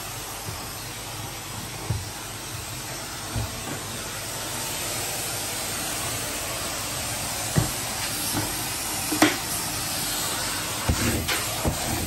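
Vacuum cleaner running with a crevice tool fitted: a steady airy hiss of suction, broken by a few short knocks.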